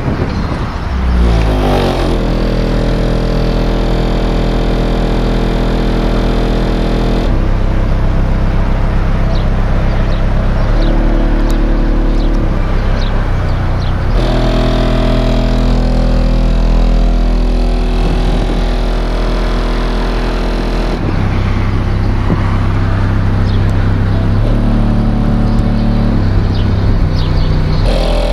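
Bass-heavy music played loud through a car audio system's 15-inch MTX TR5 subwoofer, driven by a Kicker ZX-750 amplifier, heard from outside the car. The deep bass notes hold steady and change every few seconds.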